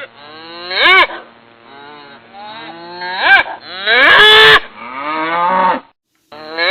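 Cows mooing: four calls one after another, a short one about a second in, another past three seconds, a long drawn-out one in the middle, and a last one starting after a brief dead gap near the end.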